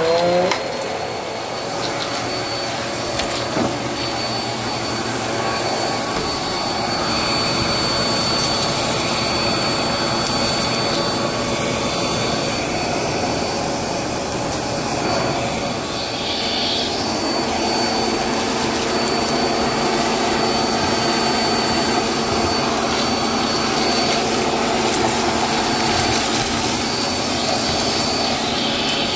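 Vacmaster vacuum cleaner running steadily, drawing air through its hose and wand along the carpet edge. Its motor gives a continuous whine over the rush of air.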